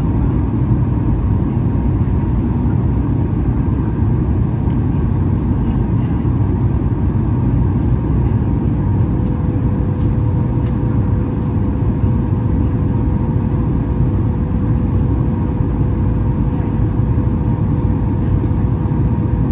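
Cabin noise inside a Boeing 737-8 MAX: a steady, deep rumble of its CFM LEAP-1B jet engines and rushing air, with a faint steady tone joining about halfway through.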